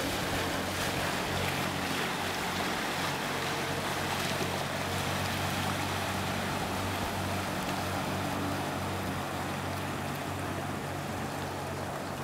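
Sea-Doo 3D jet ski engine running steadily at a distance as it circles on open water, mixed with wind and water noise, easing slightly near the end as it heads away.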